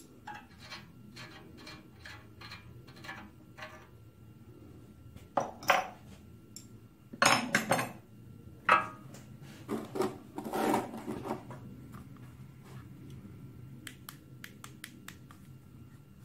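Light, even clicking, two or three a second, as a hand tap is turned in a threaded bolt hole in a cast-iron engine block. Then, from about five seconds in, several loud metal clanks and rattles as steel tools are handled and set down.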